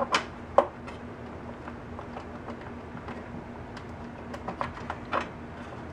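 Scattered small plastic clicks and ticks of wiring-harness connectors being pulled from their headers inside an Ensoniq ESQ-1 synthesizer, the sharpest just after the start and again about five seconds in, over a faint steady hum.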